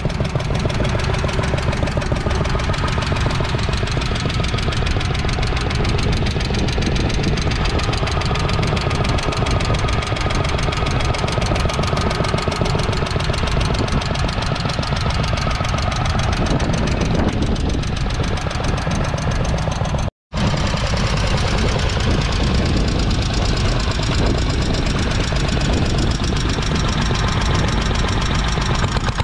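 1948 Trusty two-wheeled walking tractor's 600cc single-cylinder petrol engine running steadily with a rapid, even firing beat. The sound cuts out for a split second about two-thirds through.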